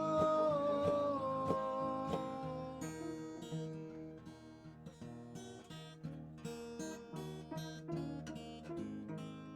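Acoustic guitar strummed and picked. A long held note sounds over it for the first few seconds and stops about three seconds in, leaving the guitar chords alone.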